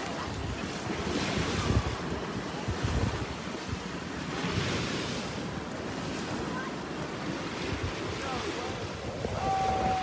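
Small surf breaking and washing up a sandy beach at the water's edge, the hiss swelling three times as waves run in, with wind rumbling on the microphone.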